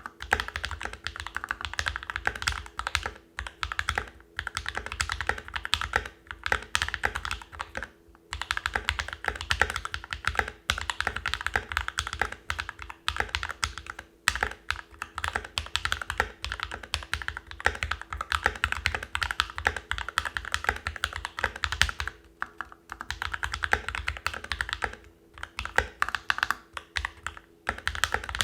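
Typing on a mechanical keyboard fitted with lubed and filmed Alpaca v2 linear switches, in a NovelKeys NK65 Entry Edition. A fast, steady run of keystrokes is broken by short pauses every few seconds.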